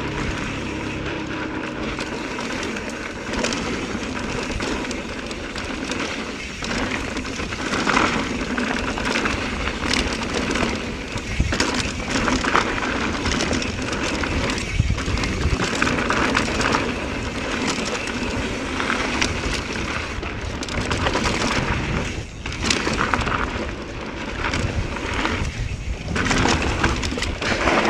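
Mountain bike riding down a rocky trail: tyres rolling and clattering over rock, with many sharp knocks and rattles from the bike.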